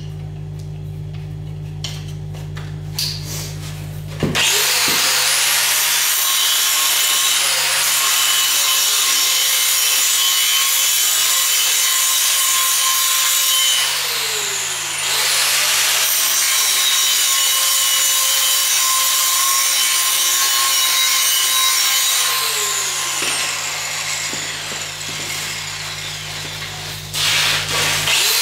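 Stick welding on steel pipe with a cellulose 6010/8010 electrode: the arc strikes about four seconds in and runs as a steady loud crackle and hiss, breaks off briefly in the middle, then fades out. Before the arc, a steady low hum from the engine-driven welder; a few short loud noises come near the end.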